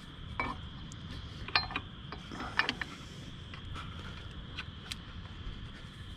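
Small metal clicks and taps as a bolt and spacer are handled and worked into place behind a motorcycle crash bar: a few scattered, sharp clicks over a faint steady background.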